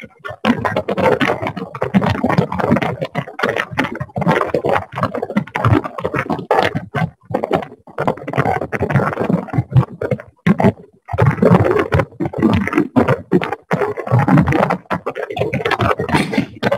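Loud, choppy crackling interference on a video-call audio line, from a participant's unmuted microphone, breaking up with several short dropouts.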